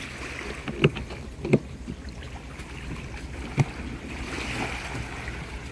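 Three light knocks from the seat cushion and gear being handled on a plastic kayak, over a steady low background hiss.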